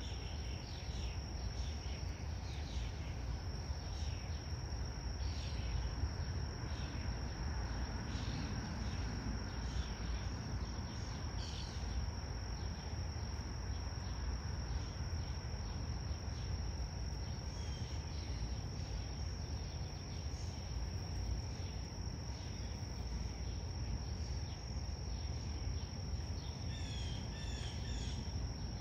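Insects chirring in one steady high unbroken tone, with short high chirps scattered throughout and a constant low rumble underneath.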